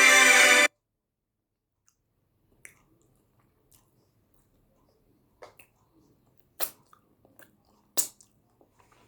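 Background music cuts off abruptly under a second in. Then close-miked eating mouth sounds of someone chewing yam with eggplant sauce: scattered wet clicks and smacks, with two louder ones in the second half.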